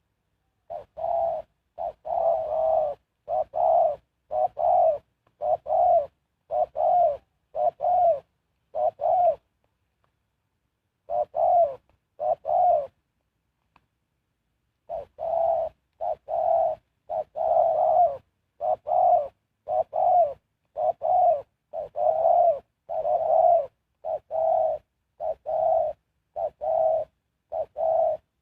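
Spotted dove cooing: a long run of short, repeated coos at about one a second, with a pause about ten seconds in and another a little before the middle.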